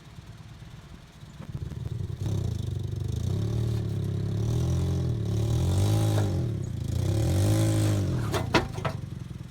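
Toyota Yaris engine revving as the car is backed up onto ramps. Its pitch rises and falls three or four times, heard through an exhaust with a leaking muffler. A few sharp clicks come near the end.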